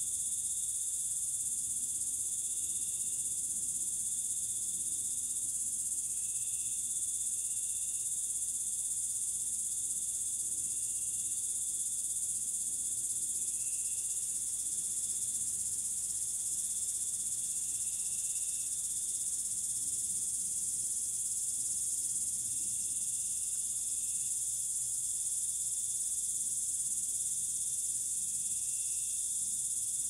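Steady, high-pitched chorus of singing insects without a break, with short, slightly lower calls breaking in every few seconds.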